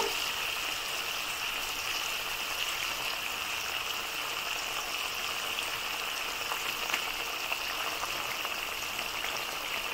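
Spiced yogurt masala sizzling and bubbling steadily in oil in a kadhai as fried paneer cubes sit in it, with a few faint ticks.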